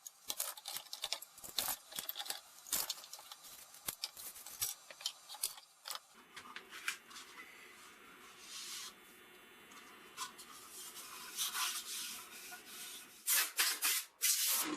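Hands working clamps and wood on the bench: a quick run of clicks, rubbing and scraping, with a few louder knocks near the end.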